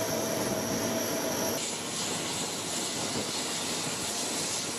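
C-130 Hercules cargo plane running on the flight line: a steady rushing engine noise with a high whine. The sound changes abruptly about a second and a half in.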